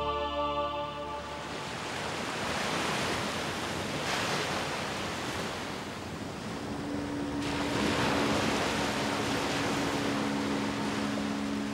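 Sea surf washing onto a sandy beach, swelling as waves break about four and eight seconds in. From about halfway through, the steady hum of a small motorboat's engine joins in.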